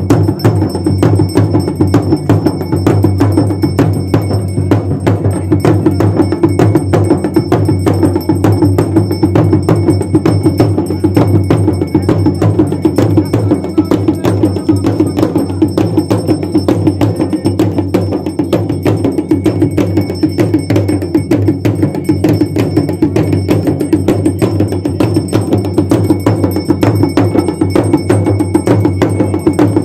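Two dhol drums beaten with a stick and the open hand in a fast, unbroken folk rhythm for dancing.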